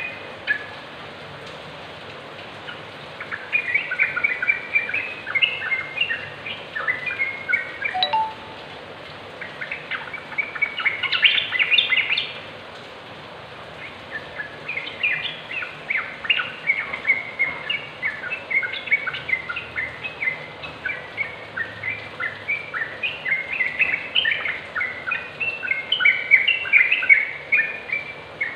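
Yellow-vented bulbul singing: runs of quick, short notes in three spells with short pauses between, the last and longest filling most of the second half.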